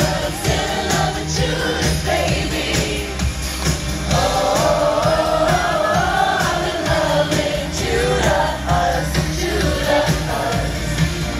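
Amplified live pop music from a stage sound system: singing over a steady, bass-heavy beat.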